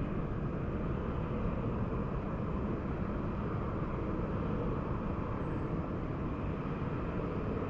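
Steady low rumble of distant jet airliner engines, even throughout with no rise or fall.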